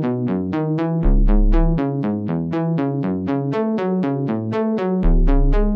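Instrumental electronic music: a fast synthesizer arpeggio of short, decaying notes, about five a second. A deep sub-bass hit comes in about a second in and again near the end.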